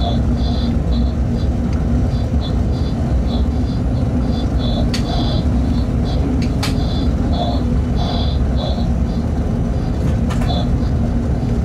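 Steady low rumble of a freight train running, heard inside the locomotive cab, with a constant hum. Short high-pitched squeaks come and go, and there are three sharp clicks.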